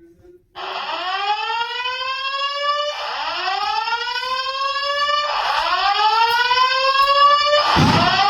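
Simplex 4100ES fire alarm speakers sounding a whoop alert tone between voice evacuation messages. The tone starts about half a second in, and each whoop rises in pitch for a couple of seconds before dropping back and starting again, four times over. A loud rush of noise joins near the end.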